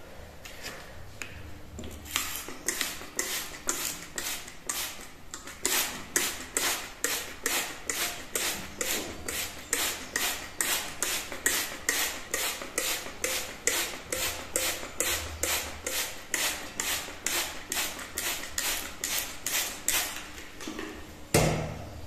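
Trigger spray bottle misting water onto potting soil in a small pot, with quick hissing squirts at about two a second. A heavier thump comes near the end.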